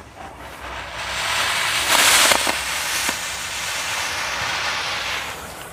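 Homemade pipe rocket motor with a medium nozzle burning on a static test stand: a rushing hiss of thrust that builds over the first second or so, is loudest around two seconds in, then burns steadily and stops near the end.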